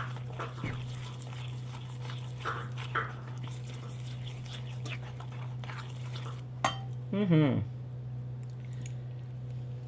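Small wire whisk scraping and clicking against a stainless steel bowl as it beats a thick maple glaze, over a steady low hum. About seven seconds in, a brief vocal sound falling in pitch.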